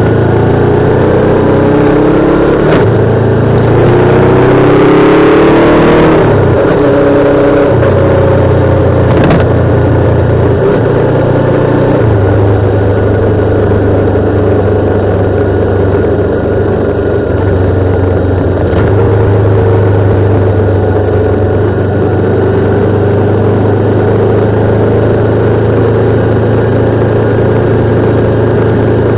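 Motorcycle engine under way, its pitch climbing for a few seconds as it accelerates, then dropping sharply about six seconds in. After that it runs at a steady pitch.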